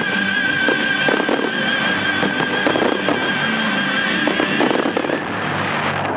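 Aerial firework shells bursting in quick, irregular succession with crackling, over the display's music, which holds one long note.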